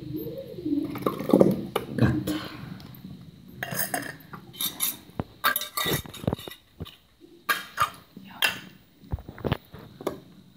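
Stainless steel cat food bowls being handled and set into a plastic feeding stand: a series of sharp metallic clinks and knocks, busiest in the middle of the stretch.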